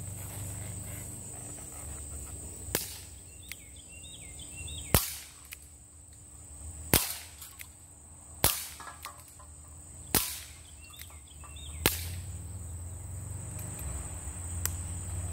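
Schofield-style CO2 BB revolver firing six shots, sharp cracks spaced about one and a half to two seconds apart.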